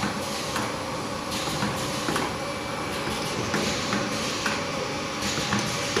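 Automatic perfume filling, crimping and collaring machine running: a steady mechanical hum and hiss with frequent, irregular clicks and clatter from its moving parts and the glass bottles on the conveyor.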